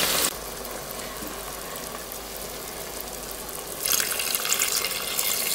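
Red wine poured onto hot fried pork pieces in a multicooker bowl, with a louder crackling hiss as it hits the hot bowl about four seconds in. Before that, the meat sizzles quietly in the bowl.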